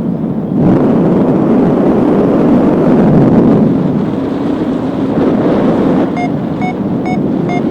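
Strong wind buffeting the microphone in paraglider flight, a loud steady rush. Near the end a paragliding variometer sounds short evenly spaced beeps, about two a second, its signal that the glider is climbing.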